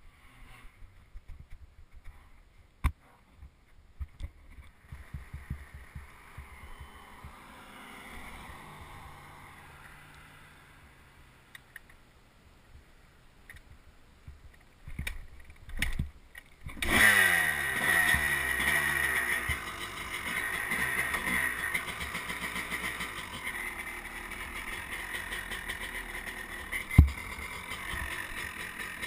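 Scattered knocks and handling noise, then two heavy thumps as a dirt bike is started. Past halfway the engine catches, its revs rising and then settling into a steady run, with one sharp click near the end.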